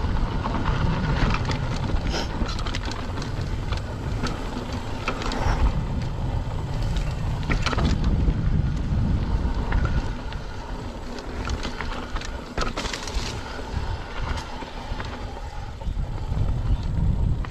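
Mountain bike riding down a dirt singletrack, with wind buffeting the action camera's microphone as a steady low rumble. Tyres crunch on the dirt and the bike gives scattered clicks and rattles over the bumps.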